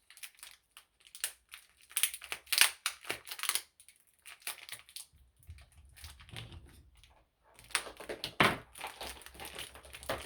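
Cat scratching at a scratch post: irregular bursts of scratchy strokes, thickest about two seconds in and again near the end.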